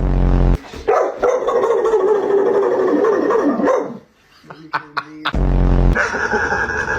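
A dog barking and vocalizing in drawn-out sounds whose pitch wavers up and down, with a short break in the middle. A loud low rumble sounds for about half a second at the start and again about five seconds in.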